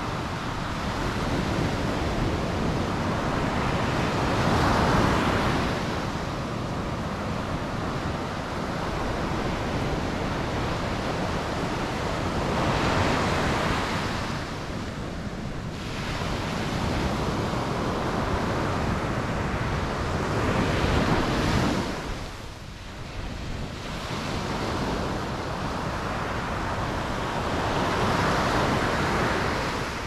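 Surf breaking and washing up a sandy beach: a continuous rushing hiss that swells with each breaker and eases between them, the loudest surges coming about every eight seconds.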